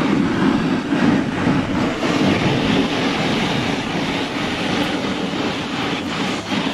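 Snowboard riding down packed snow: a steady rushing scrape of the board's base and edges over the piste, mixed with wind buffeting the microphone.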